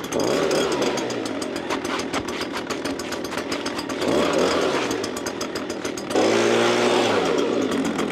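Handheld gas leaf blower running, blowing loose debris off a roof seam. It is revved up and down several times and held at a steady high speed from about six seconds in.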